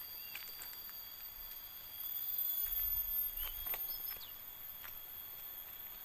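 Tropical forest ambience: a steady, high-pitched insect drone made of several held tones, with short bird chirps scattered through it. Footsteps and rustles from walking over leaf litter break in now and then, and the sound swells for a couple of seconds in the middle.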